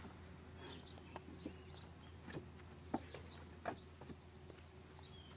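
A few sharp knocks and clinks of fired bricks being handled and set down, with birds chirping faintly in the background over a steady low hum.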